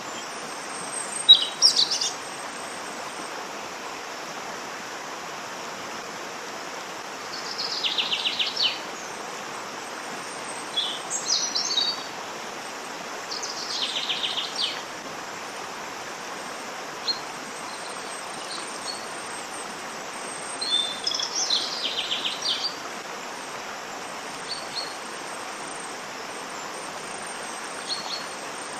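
Steady rush of a waterfall, with songbirds calling over it in short phrases of rapid repeated notes every few seconds.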